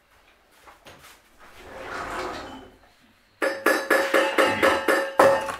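Music with a quick, steady beat starts suddenly about three and a half seconds in, at about four beats a second over sustained notes. A softer swell of sound comes before it.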